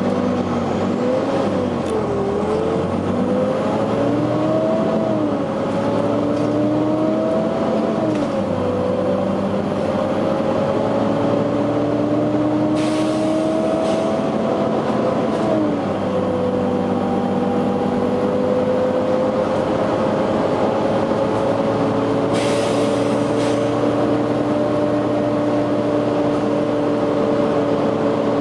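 Volvo B9TL double-decker bus running under way: its engine's pitch rises and drops back several times in the first half, then holds steady for the second half. Two short air hisses from the bus's air system come about halfway through and again about two-thirds through.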